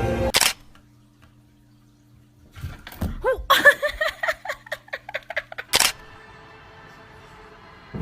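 A cat giving a rapid run of short, arching chirps and meows for about three seconds, over a low steady hum. Sharp clicks mark edits just after the start and near the end.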